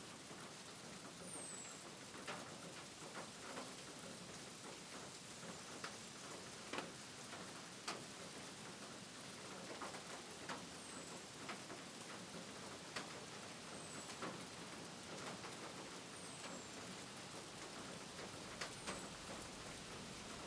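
Light rain falling, an even hiss with scattered sharp drip ticks, and a short, high falling chirp recurring every two to three seconds.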